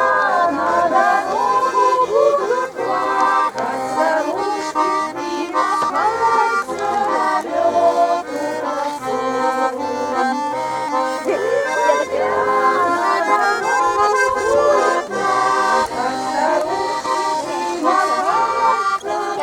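Garmon (Russian button accordion) playing a tune: a melody of held and moving notes over a steady, evenly repeating bass-and-chord accompaniment.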